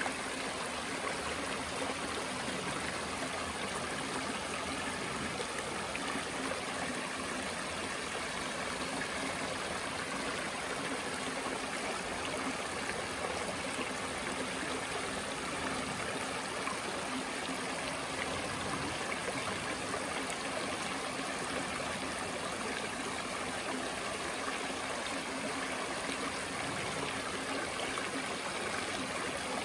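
Shallow creek water rippling over flat stone ledges: a steady, unbroken rush of flowing water.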